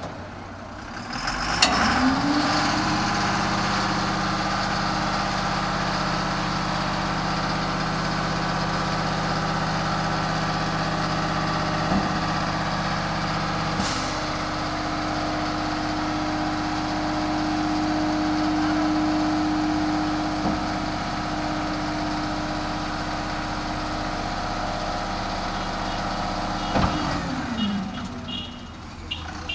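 Dump truck's diesel engine revved up and held at high speed to drive the hydraulic hoist while the tipper body is raised. The revs climb about two seconds in, the tone shifts about halfway through, and the revs drop back near the end as the body reaches full tip.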